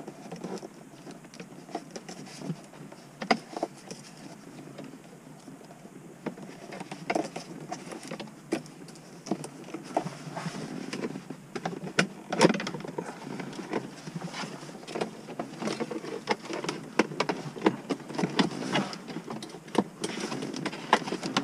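Hands handling wiring and plastic trim inside an opened car dashboard: irregular clicks, taps and rustling, busier in the second half.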